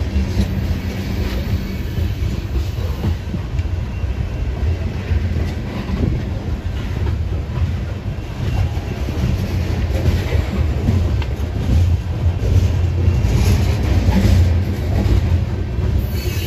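Coal cars of a freight train rolling past: a steady low rumble of steel wheels on rail, with clickety-clack over the rail joints.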